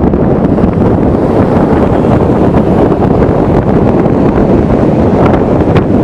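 Heavy wind buffeting the microphone of a camera on a moving vehicle, with the rumble of driving underneath; a loud, unbroken rush.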